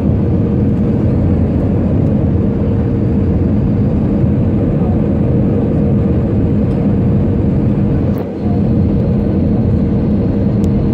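Steady jet engine and airflow roar heard inside an Airbus A320's cabin during descent on approach, with a steady hum under it. The level drops briefly about eight seconds in.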